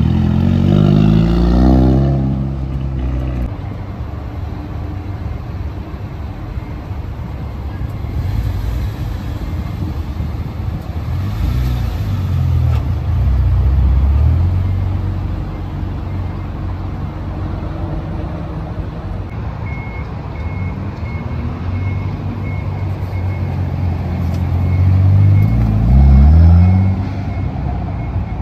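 Car engines running and revving as cars move through a parking area; the engine pitch rises as a car pulls away at the start and again near the end. From about two-thirds of the way in, a vehicle's reversing beeper sounds over and over.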